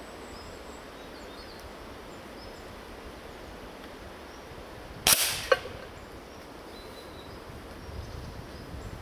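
A single shot from a Gamo CFX .177 underlever spring-piston air rifle about five seconds in, a sharp report with a short decaying tail, followed about half a second later by a sharp click of the pellet striking the Flippo disc target.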